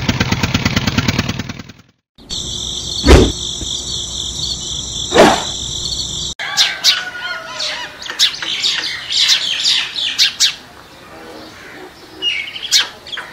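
A rhythmic engine chugging, about nine beats a second, cuts off about two seconds in. A steady high whine follows, with two loud thumps. Then birds chirping take over for the second half.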